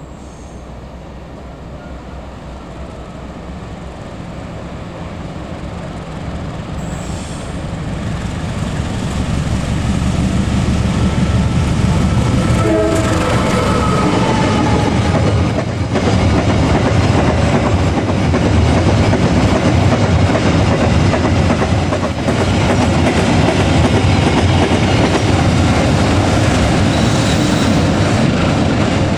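KAI CC201 diesel-electric locomotive hauling a ballast train of hopper wagons, its engine growing steadily louder as it approaches and passes close, then the loaded wagons rumbling and clattering over the rail joints as they roll by.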